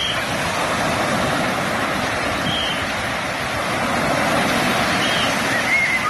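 Mediterranean surf breaking and washing up a sand beach, a steady rushing wash. A few short high squeaks sound over it.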